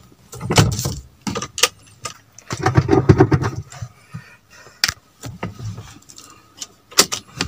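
Car keys jangling, with several sharp clicks and handling knocks as the key is fitted into the car's ignition.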